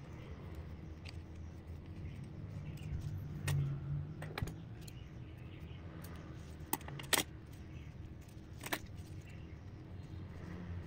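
A handful of sharp, scattered metallic clicks and snips from scissors and a utility-knife blade cutting soft rubber lure material, over a low steady background rumble.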